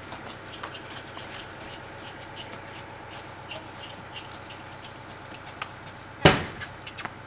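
Horse trotting on sand, its hoofbeats muffled and irregular, with one loud thump about six seconds in that dies away quickly.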